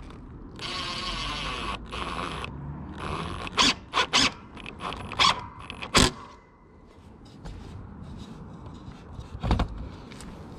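Ryobi cordless impact driver driving screws into the wooden frame of a fence panel: a run of rapid hammering about a second long, a shorter run after it, then several sharp knocks.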